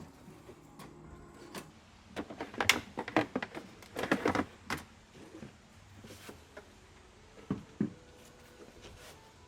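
Hands handling and knocking small plastic and metal parts of a spa pump being taken apart: a quick flurry of clicks and knocks about two to five seconds in, then two duller knocks near the end.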